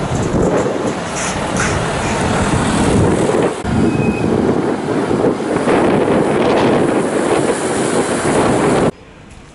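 Mercedes-Benz Actros trucks driving past close by, one after the other: a steady diesel engine and tyre noise with wind on the microphone. The sound drops suddenly to a much quieter background near the end.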